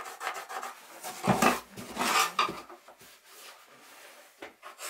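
Pencil and a metal spacer strip scraping, rubbing and tapping along a fibreglass surface as a cutting line is marked out. There are louder knocks and clatter about one and two seconds in, then quieter scratching.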